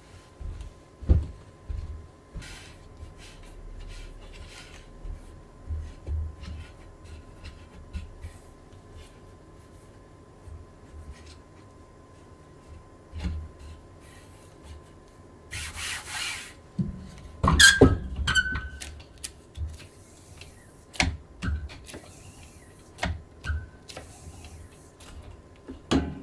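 Handling sounds of hand screen-printing work: scattered soft knocks and rubbing, a short hiss a little past the middle, then a cluster of sharp clinks with a brief ringing tone, the loudest moment, about two-thirds of the way in.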